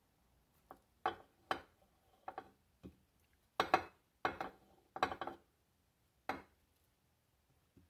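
Peeled potato halves being set one at a time into a slow cooker's crock of chopped vegetables. There are about ten short knocks and clinks against the crock and a plate, spread unevenly over several seconds.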